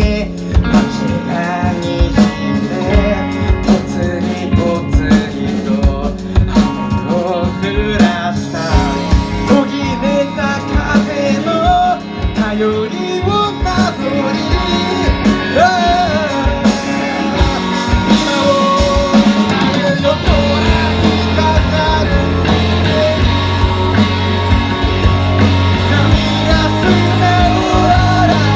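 Rock band playing an instrumental passage on drum kit, bass and electric guitar, with a wandering lead melody over it. About twenty seconds in the drum hits thin out, and a long held low note and sustained chords take over.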